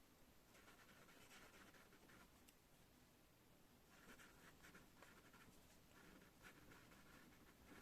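A pen scratching across paper as someone writes by hand, faintly, in three runs of strokes with short pauses between them.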